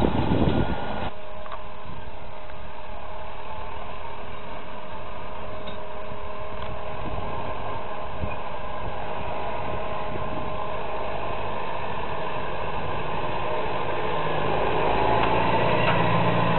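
Tractor engine running steadily in a harvest field, growing louder over the last few seconds as a tractor pulling a trailer draws close. About a second in, a louder, windier stretch of machinery noise cuts off suddenly.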